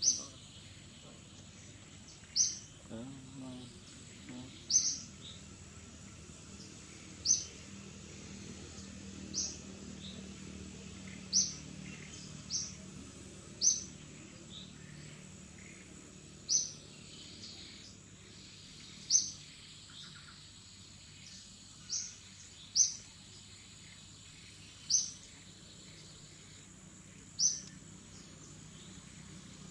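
A bird calling in short, sharp, high chirps, one roughly every two seconds, over a steady high-pitched insect drone.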